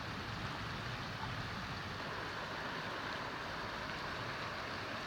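Steady rushing of flowing creek water, with a low rumble underneath.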